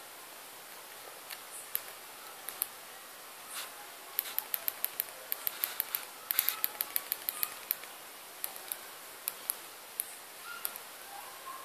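Small plastic keys of a Spice Stellar Mi-285 phone's QWERTY keypad clicking under a thumb while typing: scattered single clicks, then a quick run of clicks in the middle.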